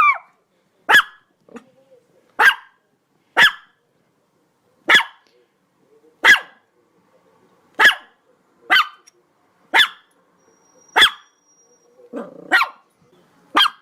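A dog barking single sharp barks, one about every second or so, about a dozen in all. A lower, longer sound comes just before one of the barks near the end.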